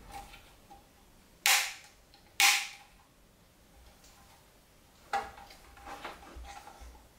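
Handling knocks on the metal case of a Topshak ZX7-250 mini inverter welder: two sharp knocks about a second apart, each ringing briefly, then a cluster of softer knocks and rattles as the unit is turned over in the hands.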